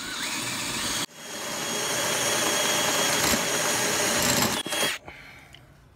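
Cordless drill in low gear driving a 1 1/4-inch hole saw through the steel of a Jeep Cherokee XJ's unibody frame rail: a steady grinding cut that breaks off briefly about a second in, then runs on and stops about five seconds in.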